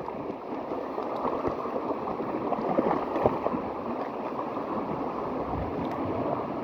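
Steady rush of waves washing on the shore, mixed with wind, with a few faint small knocks.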